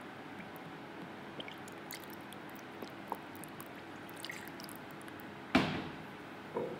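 Quiet kitchen handling while sauce is poured from a bottle into a metal spoon over a ceramic bowl of raw chicken, with faint scattered clicks. A sharp knock about five and a half seconds in, then a softer one a second later.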